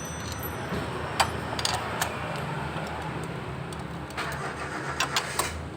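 Scattered sharp metallic clicks and clinks, like tools and small metal parts being handled, over a steady low hum.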